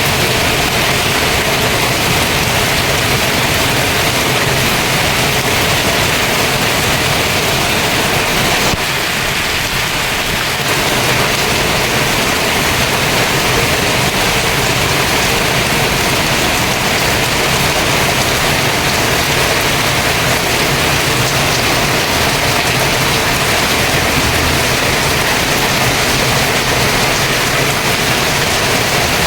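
Heavy rain pouring down in a steady downpour, easing slightly for a moment about nine seconds in.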